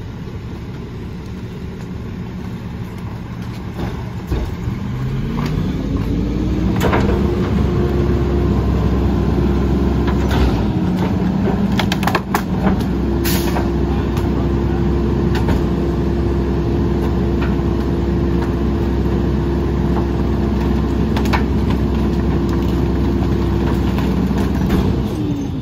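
Mack LE rear-loader garbage truck's diesel engine idling, then revving up about five seconds in and holding a steady high idle while the hydraulic packer compacts tree branches in the hopper, dropping back to idle near the end. A few sharp cracks sound partway through.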